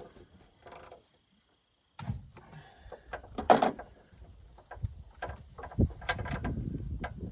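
Scattered clicks and knocks of hand tools and metal parts while a compression tester is fitted into a spark-plug hole, with one louder knock about three and a half seconds in. About a second in there is a moment of dead silence.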